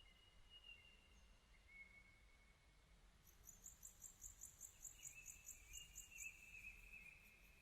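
Near silence with faint wildlife: drawn-out, slightly wavering whistled bird notes, and a rapid high chirping of about four pulses a second through the middle.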